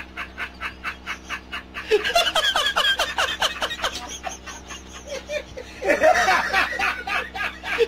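A man laughing loudly in rapid, rhythmic bursts of several pulses a second. The laugh swells about two seconds in and again near the end.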